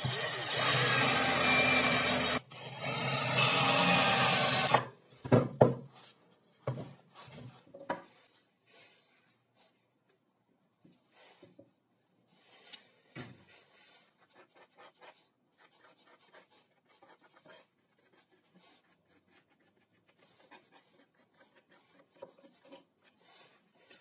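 Cordless drill boring into plywood in two or three short runs, stopping about five seconds in. After that come faint scattered knocks and rubbing as the wooden pieces are handled on the bench.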